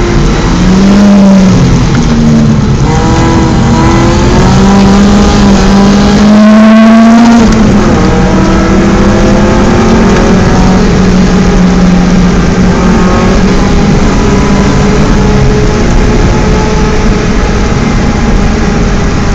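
BMW 318is four-cylinder engine being driven hard on a race track: revs climb, drop sharply on a gear change or lift about seven seconds in, then hold a steadier note, over heavy wind and road noise.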